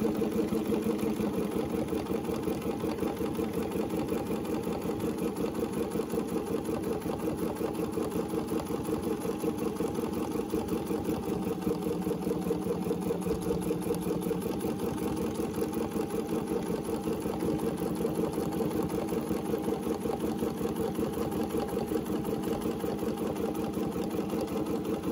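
Domestic Bernina sewing machine stitching steadily at speed, a continuous rapid needle rhythm as it free-motion quilts along the edge of a ruler.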